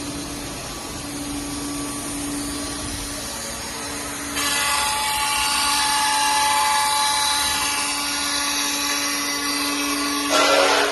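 CNC router spindle running with a steady whine, then about four seconds in the bit starts cutting into the workpiece, adding a loud high cutting noise that carries on, with a brief louder burst near the end.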